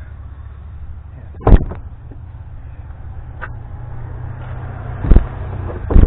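Knocks and clunks of a car battery being shifted in its tray and worked loose by hand: three loud thumps, about a second and a half in, around five seconds in and again near the end, over a steady low rumble.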